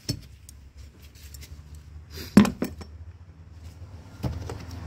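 Metal hand tool clinking and knocking against the hose clamps and parts of the engine bay, a few sharp clicks with the loudest cluster about halfway through. A low steady hum comes in near the end.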